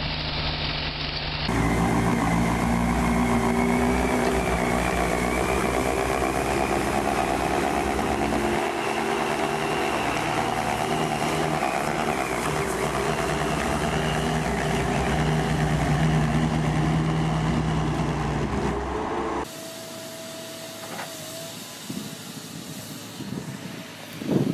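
Engines of heavy construction machines running steadily, a skid-steer loader's among them, with abrupt changes as one machine gives way to the next. About five seconds before the end the sound drops suddenly to a much quieter level.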